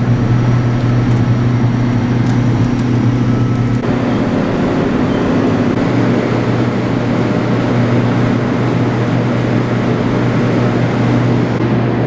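Ship's deck machinery running steadily: a constant low hum over a dense mechanical rumble, shifting slightly about four seconds in.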